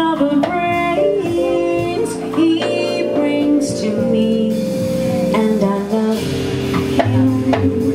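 A small live jazz combo playing an instrumental passage of a ballad: electric stage piano with upright bass and drums, no vocal.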